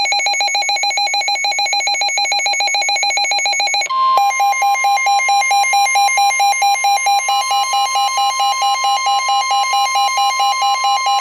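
Weather radio emergency alert tones. A weather radio receiver's electronic alarm beeps in rapid pulses. About four seconds in, the steady 1050 Hz Weather Alert Tone of the NOAA Weather Radio broadcast comes on, while the receiver's alarm keeps pulsing over it at about three beeps a second. Together they signal an incoming warning.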